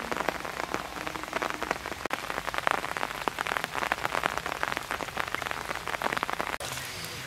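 Rain falling on pond water and leaves: a steady, dense patter of many small drops.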